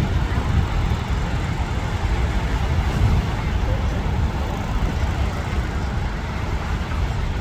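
Rhine Falls' water roaring as a steady, unbroken rush, heaviest in the deep rumble.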